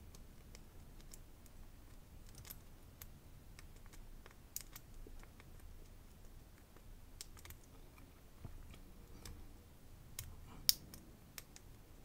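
Faint, irregular clicks from the number wheels of a small four-wheel combination luggage lock, turned a notch at a time by fingertips while the shackle is pulled to feel for each wheel's gate and decode the combination. One sharper click comes near the end.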